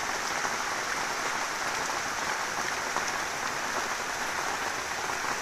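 Heavy rain falling steadily: an even hiss with scattered drip ticks.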